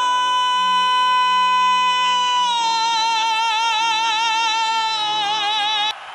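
A song's vocalist holds one long high note, then moves to a slightly lower note sung with vibrato, over sustained keyboard chords. The music cuts off suddenly near the end, leaving a quieter hiss.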